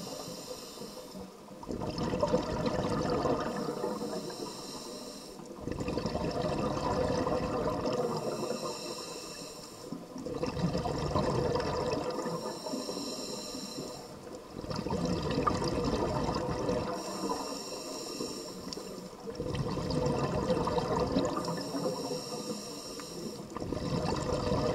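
Scuba diver breathing through a regulator underwater. A hiss on each inhale alternates with a burst of bubbling exhaust on each exhale, about five full breaths at an even pace of one every four to five seconds.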